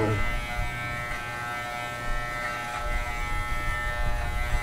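Electric hair clippers with a guard comb buzzing steadily while cutting a dog's coat: a low hum with a thin whine above it.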